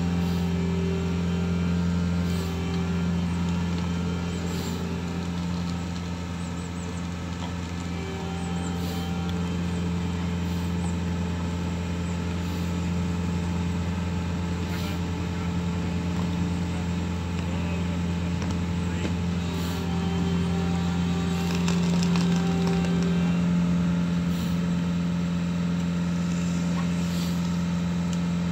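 An engine running steadily, a deep even hum that holds without a break.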